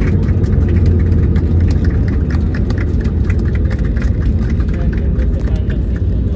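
Airliner cabin noise while rolling along the runway after landing: a loud, steady low rumble from the engines and the wheels on the runway, with rapid light rattling clicks throughout.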